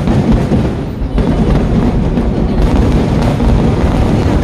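Fireworks barrage, many shells and firecrackers going off in rapid succession that blend into a continuous loud rumble, starting with a sudden bang.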